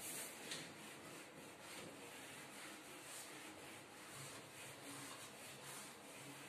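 Handheld whiteboard eraser wiping across a whiteboard in repeated faint swishing strokes, rubbing off marker writing.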